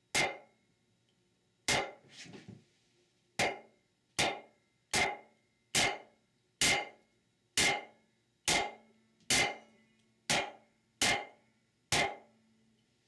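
A block of wood knocking against the aluminium valve body casting of a Ford E4OD/4R100 transmission: thirteen sharp knocks, a little under one a second. The taps are slowly working a stuck valve sleeve out of its bore, a sleeve that cannot be pried out without marring the soft aluminium.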